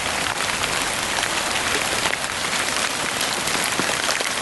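Steady rain mixed with wet snow falling: a dense, even hiss with scattered sharper ticks of individual drops.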